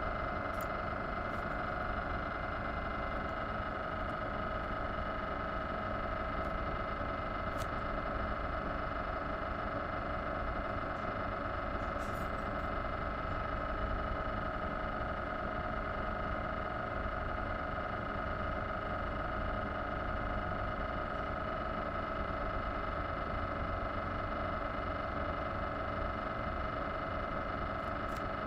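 Philips 1.5T MRI scanner running a scan sequence, its gradient coils giving a fast, even buzz that holds one pitch, with a strong high tone over lower ones.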